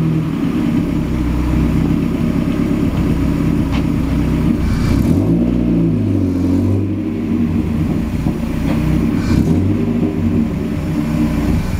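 Mazda Miata's engine running at low revs as the car creeps forward, its pitch rising and falling briefly about five seconds in and again near nine seconds.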